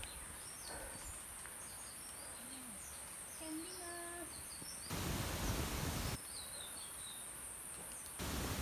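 Forest ambience: small birds chirping in short, high notes over a steady high-pitched hiss. Twice, about five seconds in and again near the end, a loud rush of noise covers everything for a second or so.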